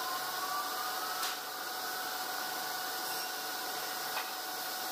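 Band-saw sawmill machinery running with a steady hiss and a whine. The whine rises in pitch over the first second or so, with a sharp knock just after it and another, fainter one near the end.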